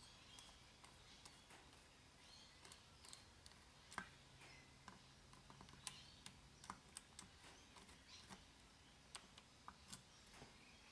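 Faint, irregular small clicks of a screwdriver working on a Yamaha XJ900S carburettor as a mixture screw is backed out.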